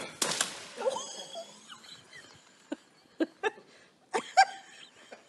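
A sudden rustling crash as a strapped-up tree tent gives way and drops the man sitting in it into the bushes. Short cries follow, with a few sharp clicks in between.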